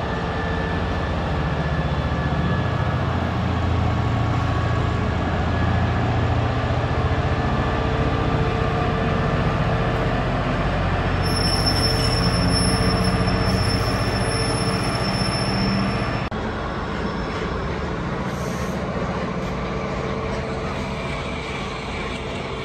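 Class 66 diesel freight locomotive running past at working power, its two-stroke V12 diesel engine giving a steady low note, while its train of open box wagons rolls by. About halfway in, a thin high wheel squeal sets in for about five seconds, then stops as the sound drops suddenly a little quieter.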